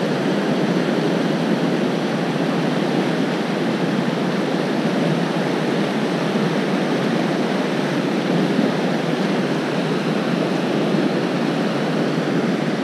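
Steady rush of a fast river running over rocks and riffles.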